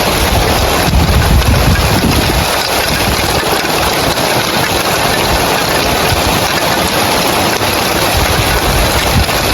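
Heavy rain falling on roof tiles, a dense, steady hiss, with a deep rumble underneath for the first two seconds or so.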